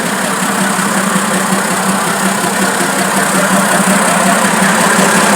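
Fiat 190 truck's diesel engine running steadily, unthrottled, growing slightly louder toward the end; it has just been brought back to running after three years standing.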